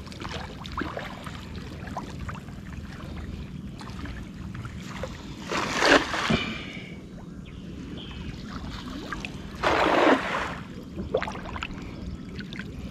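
Water splashing: two loud, sudden splashes, about six and ten seconds in, over a steady low background rumble.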